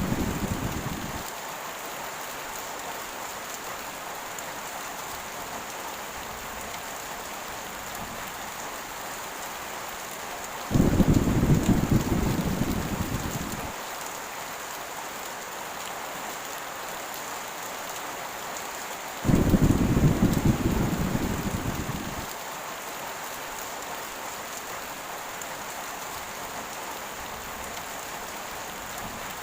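Steady heavy rain with rolls of low thunder. One rumble fades out just after the start; two more break in abruptly about eleven and nineteen seconds in, each dying away over about three seconds.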